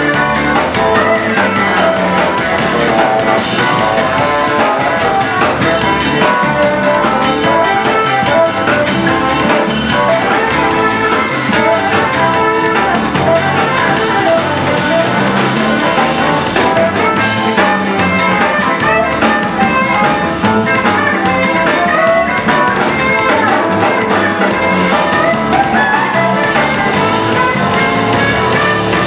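Live jazz-fusion band playing: a tenor saxophone leads over electric bass, electric guitar and a drum kit with a steady beat.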